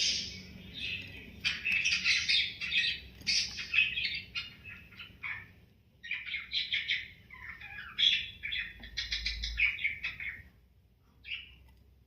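Pet budgie chirping and chattering in quick, busy bursts, with a short lull about five and a half seconds in and a longer one near the end.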